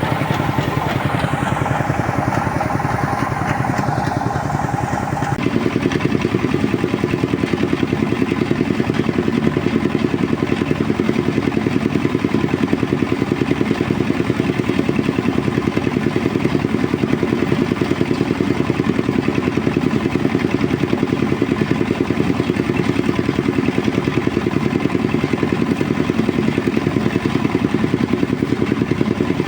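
Engine-driven rice threshing machine running steadily. About five seconds in, a higher whine stops and the lower running sound becomes heavier.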